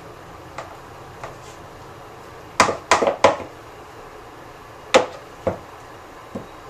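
Metal spoon clinking against a ceramic mixing bowl while beating softened butter and powdered sugar: a couple of faint clicks, then three loud clinks in quick succession about two and a half seconds in, one more loud clink near five seconds, and two softer ones after it.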